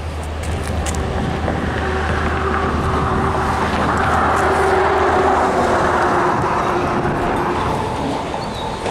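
A road vehicle passing close by, its tyre and engine noise swelling to a peak about five seconds in and then fading.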